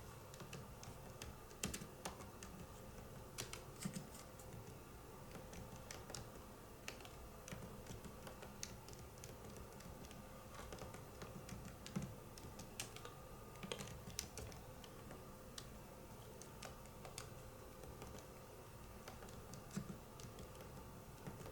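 Typing on a PC keyboard with fingers affected by focal dystonia: faint, irregularly spaced key clicks throughout, with a few louder strikes.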